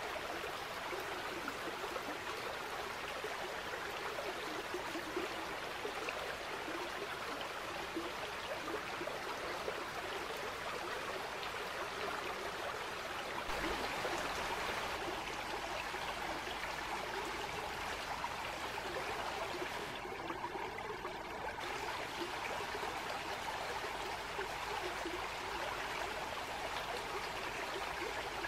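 Stream water flowing steadily, with a slight change in its sound about halfway through.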